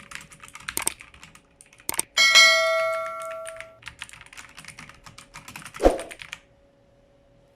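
Keys of an Xecret K750L mechanical keyboard clicking as they are typed on, stopping about six and a half seconds in. About two seconds in, a loud ringing ding starts and fades over about a second and a half.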